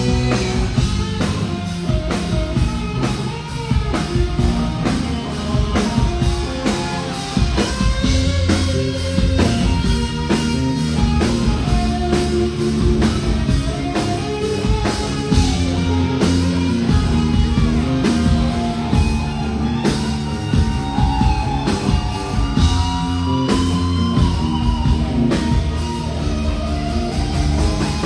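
Rock band playing live: guitar, bass and a drum kit with a singing voice over them.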